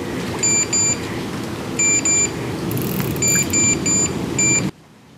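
Electronic bite alarm on a fishing rod giving short, irregular bleeps, about eight of them in pairs and threes. It is signalling a pickup: a fish taking the bait and pulling line. A steady low background noise runs under it and cuts off abruptly near the end.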